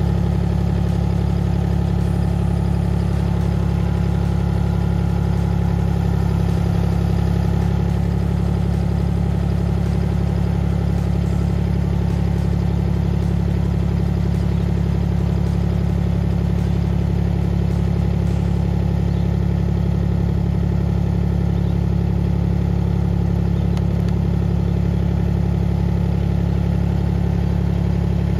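HAIHONG CTX8010 mini excavator's engine running steadily at an even speed, a constant low hum with no change in pitch.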